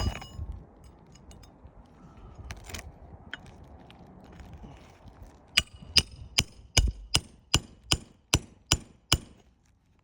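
Hammer driving a roofing nail into a shingle: about ten sharp, ringing strikes in a steady run of roughly two and a half a second, starting about halfway through, after a few lighter taps.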